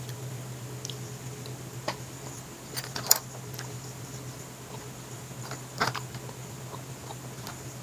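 Close-up eating sounds: a few scattered sharp clicks and mouth smacks, the loudest about three seconds in and just before six seconds, over a steady low hum.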